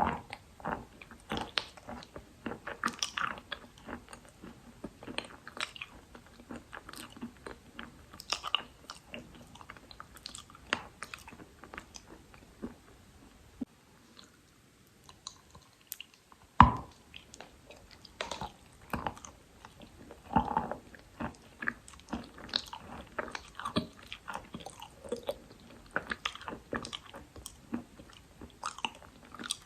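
Dry Khrapovsky chalk being bitten and chewed: a steady run of crisp crunches. About halfway through there is a short lull, then one loud bite.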